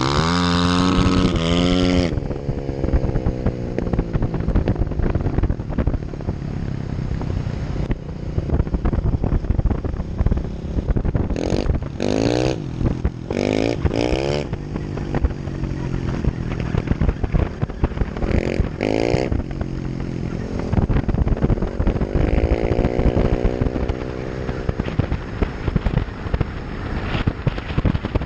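Vehicle engine revving up and dropping back several times while driving over wet playa mud, over a constant rough rumble of wind and tyre noise.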